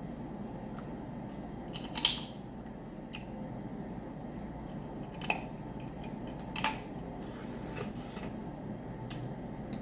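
Steamed shellfish shells being cracked and snapped apart while eating: a few sharp, short cracks, the loudest about two seconds in, with more near the middle and smaller ticks between.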